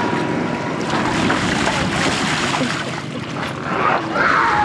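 Water sloshing and splashing around an inflatable water-walking ball on a swimming pool, with a steady noisy rush. Near the end a child's high voice cries out, falling in pitch.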